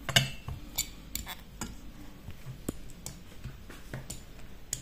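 Irregular small metal clicks and taps from a Makarov pistol's slide and firing pin being handled by hand during reassembly, the loudest click just after the start.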